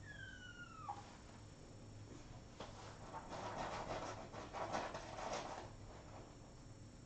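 A six-week-old kitten gives one high squeaky meow that falls in pitch. About three seconds in it scratches and digs in a litter box for a couple of seconds, a loud scratchy rustle.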